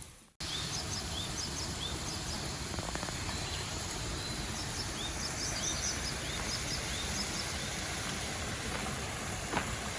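Outdoor ambience: a steady hiss with small birds chirping, short rising calls repeated again and again, and a single knock near the end.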